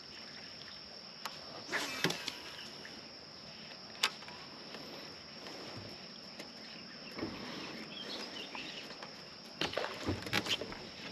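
Steady high-pitched insect drone, with the faint handling noises of casting and reeling from a fishing kayak: a few sharp ticks, a brief rustle about two seconds in, and a quick run of knocks near the end.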